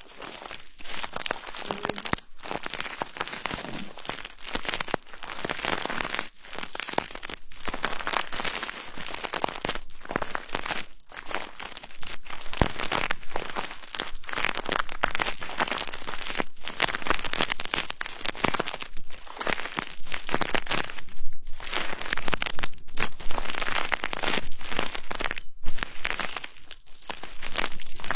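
Soft ASMR trigger prop brushing and rubbing over the microphone in quick, irregular strokes.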